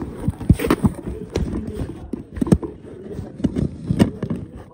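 Irregular knocks, taps and rubbing from handling close to the microphone, as a boxed action-figure toy is wrestled out of its cardboard-and-plastic packaging.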